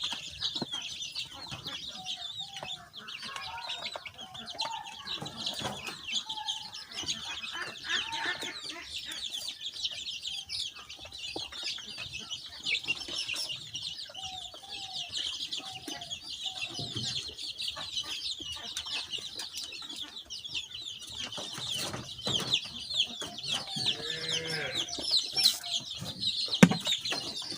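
A brood of young desi chicks peeping continuously, many short high cheeps overlapping, with a few lower calls now and then and scattered clicks.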